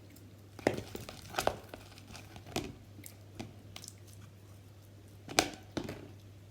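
Slime being squeezed and pressed by hand, giving irregular crackling pops and clicks, two louder ones about a second in and near the end.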